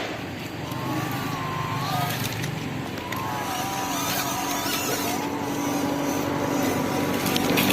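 Small electric motor and gearbox of a homemade 1/16 scale 4x4 RC truck whining as it drives, the pitch swooping up and down with the throttle over a rough running noise.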